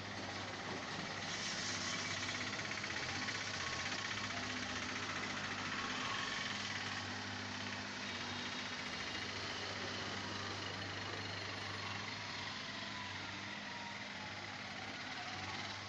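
Diesel engines of construction machinery, a mini excavator and dump truck, running steadily with a low hum under a broad mechanical rush, a little louder from about a second in.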